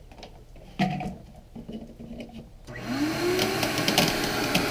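Panasonic upright vacuum cleaner switched on about two-thirds of the way in: a motor whine rises as it spins up, then settles into a steady run with a rush of suction. It is drawing air through a homemade oil extractor. Before that there are quiet handling sounds and a single knock about a second in.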